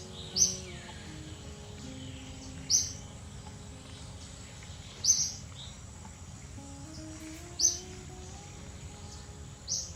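Background music of slow held notes, with a short high bird chirp repeating about every two and a half seconds.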